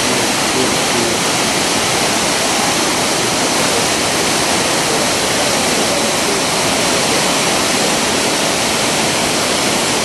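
Probiy waterfall on the Prut River: white water rushing steadily over rock ledges, a loud, even noise of falling and churning water.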